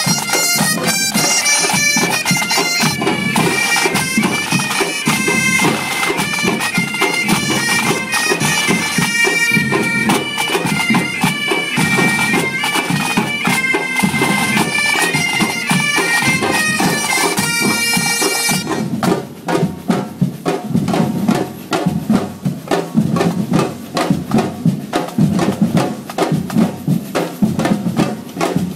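Breton bagad pipe band playing: bagpipes carry a melody over a steady drone and dense drumming. About two-thirds of the way through the pipes stop and the drums keep playing a fast rhythm on their own.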